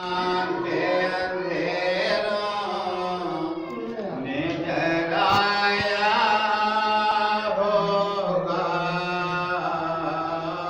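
A noha, a Shia mourning lament, chanted by a man in long, drawn-out melodic lines.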